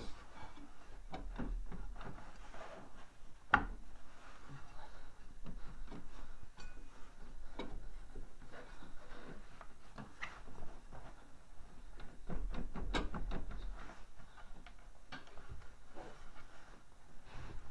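Scattered clicks, knocks and rubbing of hand tools and metal parts being handled at a snowmobile's belt clutch, with one sharper knock about three and a half seconds in.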